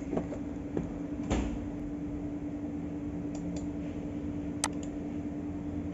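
Steady low electrical hum and hiss of the recording's background, with a single short click about four and a half seconds in.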